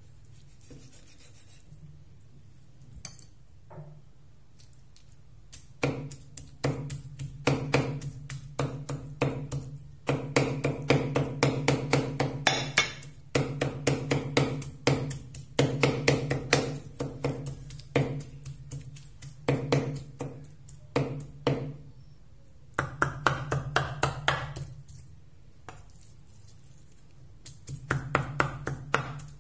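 Heavy cleaver chopping raw meat on a wooden chopping board: rapid strokes at about four or five a second, starting about six seconds in and coming in long runs with short pauses, mincing the meat.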